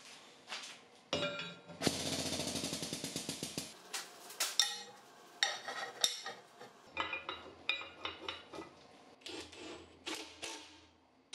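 Metal clinking and knocking of hand work on steel parts, with a rapid rattling run of strikes about two seconds in, then scattered taps and knocks.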